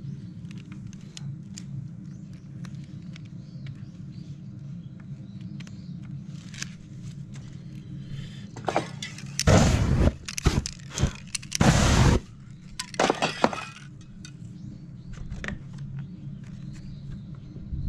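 Aerosol spray paint can hissing in several short bursts a little past halfway, the longest about a second, over scattered small clicks and a steady low hum.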